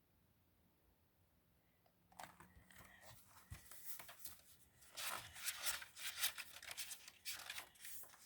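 Near silence for about two seconds, then a run of paper rustling and handling noises from a picture book being handled and its pages turned, loudest in the second half.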